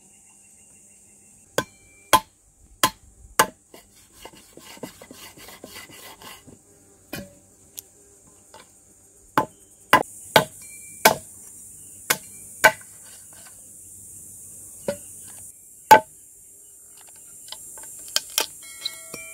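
Knife and cleaver chopping lamb shanks on a wooden cutting board: about a dozen sharp chops at irregular intervals, with softer cutting and scraping sounds between them. Insects keep up a steady high buzz behind the chopping.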